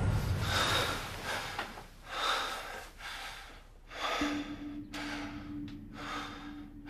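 A person breathing hard: short, noisy breaths about once a second. A low steady tone sets in a little past four seconds and holds.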